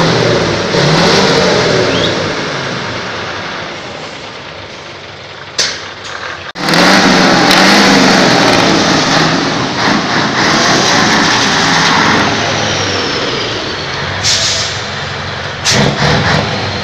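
Scania 141 Super's 14-litre V8 diesel revving hard through its tall vertical exhaust stacks, then running loud as the truck moves off, its pitch rising and falling with the throttle. A few short, sharp air hisses break in midway and near the end.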